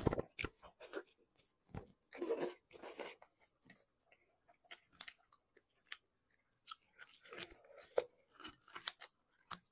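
Close-up eating of a braised beef trotter: biting and chewing the gelatinous tendon and skin, an irregular run of mouth sounds and small clicks with a few louder bites.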